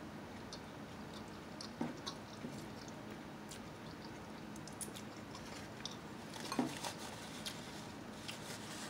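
A person chewing and biting into a sub sandwich close to the microphone: soft, wet mouth clicks throughout, with louder bites or smacks about two seconds in and again at about six and a half seconds.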